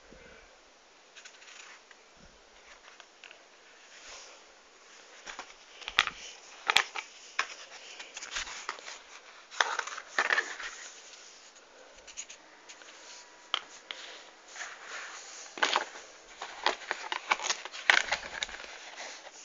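A white mask handled close to the microphone: irregular rustling, scraping and crackling, with sharp clicks that come thicker from about a quarter of the way in.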